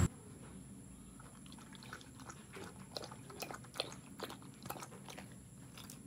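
Dog chewing: faint, irregular crunching clicks, bunched in the middle seconds.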